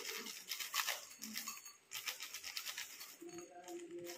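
Plastic snack packet crinkling as crisp fried snacks are shaken out of it and patter onto a plate, busiest in the first couple of seconds.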